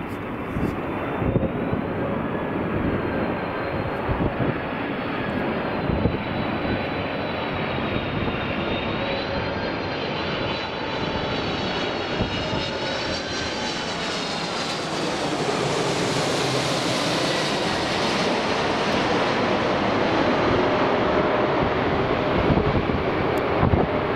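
Boeing 747's four jet engines running on the runway: a continuous rumble with a high fan whine that wavers in pitch, growing louder and hissier in the second half. Wind buffets the microphone in the first few seconds.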